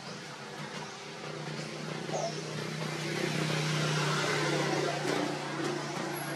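Motor vehicle passing on a road: a steady engine hum with tyre and road noise that swells about three seconds in and eases slightly near the end.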